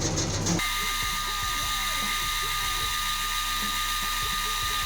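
Music cuts off suddenly just after the start. After that, a metalworking machine tool runs with a steady high whine over a steady hum.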